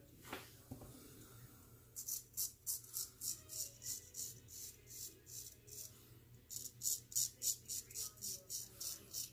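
Gold Monkey 777 straight razor scraping through lathered stubble in quick short strokes, about three to four a second, in two runs with a pause of about a second between them.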